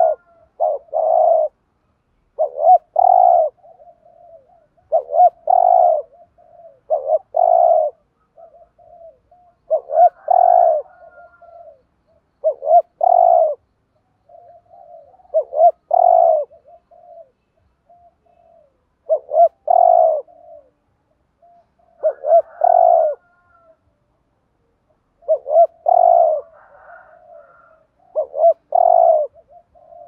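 Spotted dove cooing the "thúc gù" call: a phrase of two loud, deep coo notes repeated about every three seconds, with softer cooing notes between the phrases.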